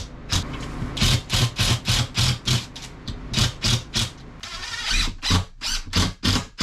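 Quick rhythmic back-and-forth strokes of a hand tool working through drywall, about three to four strokes a second, with a short pause about three seconds in.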